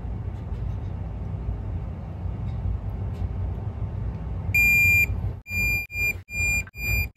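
Digital torque wrench beeping at its 200 inch-pound target as an intake manifold bolt is tightened: one longer high beep about four and a half seconds in, then a quick run of short beeps. Under it, a steady low hum.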